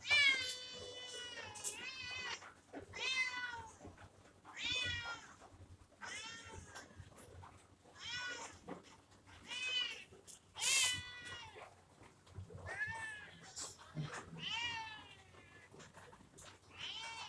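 A kitten meowing over and over, about ten separate high meows a second or two apart, each one rising and then falling in pitch; the first is the longest.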